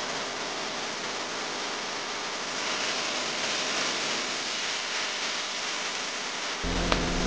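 Raw chicken pieces sizzling in hot oil with garlic and curry paste in a pan, stirred with a wooden spatula. Near the end a low steady hum comes in, followed by a single click.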